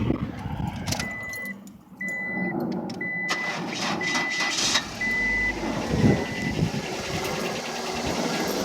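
A vehicle's warning chime beeping six times at a steady high pitch, about once a second, over the noise of the engine running.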